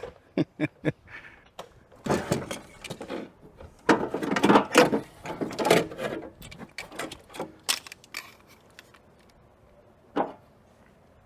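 Clicking, knocking and rattling of parts being handled during work on a car door's window regulator. The clatter is busiest in the middle, with one sharp knock about ten seconds in.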